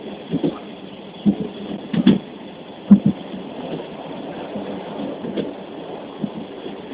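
Passenger train running, heard from inside the carriage: a steady rumble with several loud knocks in the first three seconds, the loudest about three seconds in, then an even run.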